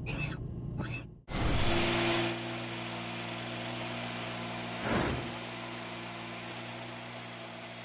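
Designed robot sound effects: two short sweeping whirs, a sudden cut, then a loud hit that settles into a steady mechanical hum with a brief whoosh about five seconds in.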